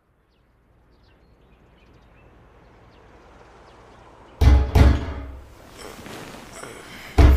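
Sound-effect background fading in, then loud knocking on a door: two bangs about four and a half seconds in, and another near the end.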